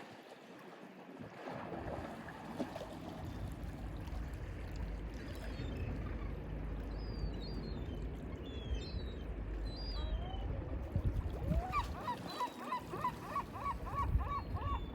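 Mediterranean sea waves washing with a steady rush and low rumble, with faint high bird chirps mid-way. Near the end a gull calls in a fast repeated series, about four calls a second.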